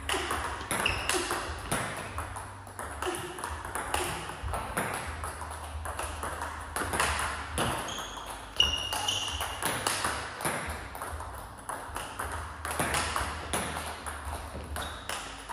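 Table tennis balls struck by rackets and bouncing on the table in a quick, continuous series of sharp clicks, as in a multiball drill; the loudest hit comes a little past the middle.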